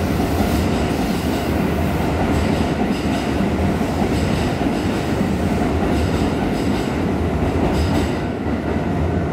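Hokuso Railway 7300 series electric train pulling out and its cars rolling past close by: a steady wheel rumble with repeated clacks over rail joints. The noise eases a little near the end as the last car clears.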